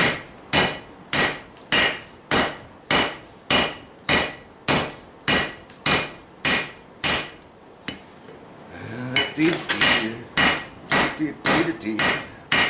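Steady hand-hammer blows, about two a second, with a 3-pound hammer on a Vulcan 90-pound cast-iron anvil; each strike rings briefly. After a pause about eight seconds in, the blows come quicker.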